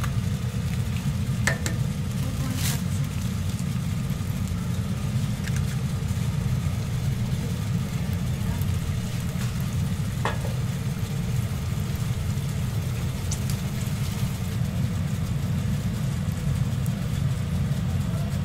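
Eggs and slices of bread frying on a flat-top griddle: a faint, even sizzle over a steady low rumble, with a few light clicks.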